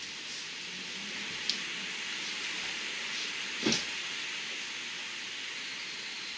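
Downburst storm wind blowing hard through trees, a steady hiss of thrashing leaves. A short sharp tick comes about one and a half seconds in, and a louder knock a little before four seconds.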